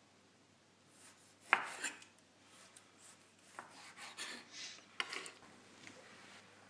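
Kitchen knife cutting a peeled orange into small cubes on a wooden cutting board. Starting about a second in, the blade knocks on the board in an irregular series, the sharpest knock about a second and a half in, with softer cuts between.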